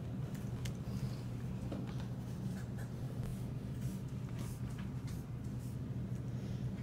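Phone handling noise: scratchy rubbing and scattered light clicks on the microphone over a steady low hum.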